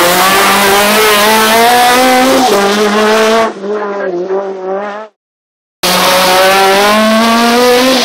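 Rally car engines at full throttle: a Citroën C2 rally car accelerates hard out of a hairpin, with an upshift about two and a half seconds in. The sound drops away and cuts out for a moment just past halfway, then the next rally car comes up the road at high revs.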